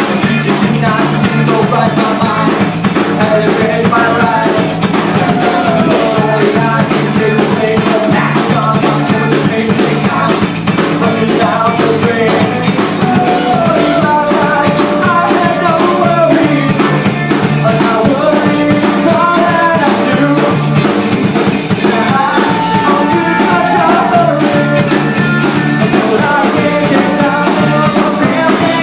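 Loud rock music from a band: a drum kit keeping a fast, steady beat under a melody line that bends up and down.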